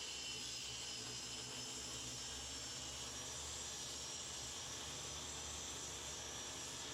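Steady faint hiss with a low hum underneath, unchanging throughout, with no distinct sound event.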